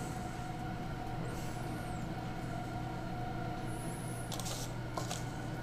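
Steady low hum with a faint steady whine, under a few light scrapes and clicks of metal spoons against a stainless steel bowl near the end.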